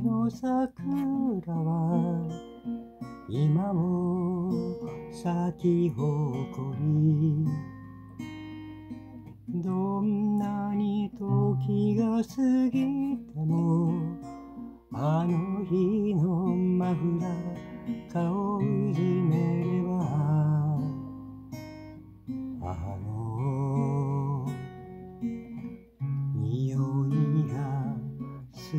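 Acoustic guitar playing the chords of a slow ballad, strummed and picked, with a voice singing over it at times.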